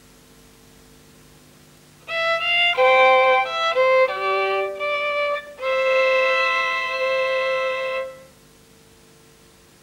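Solo violin playing a short television station ident tune: a few quick notes about two seconds in, then one long held note that stops near the end. Faint tape hiss and mains hum lie underneath.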